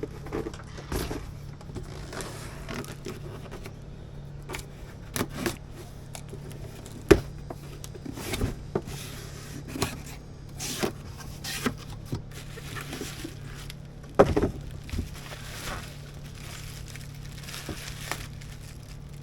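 Equipment and packaging being handled: irregular knocks, scrapes and crinkling, with two sharper knocks about a third and two-thirds of the way through, over a steady low hum.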